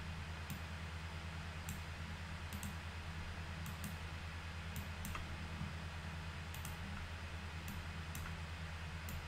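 Computer mouse clicking: light, sharp left-button clicks at irregular intervals, sometimes in quick pairs, over a steady low electrical hum.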